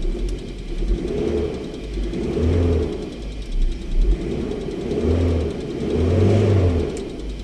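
2011 Isuzu Alterra's diesel engine being revved about five times, each rev rising and falling back. The engine is running with its broken camshaft position sensor wire spliced, no longer stumbling and with no fault codes.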